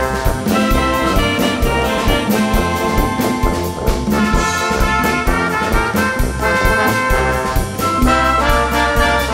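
Wind band playing a tune, brass instruments such as trumpets and trombones carrying the melody over a steady drum beat.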